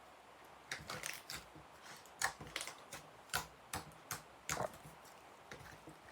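Slime with foam beads in it, squished and pressed by hand, giving an irregular run of quiet sticky clicks and pops. The pops are loudest in the middle and stop a little before the end.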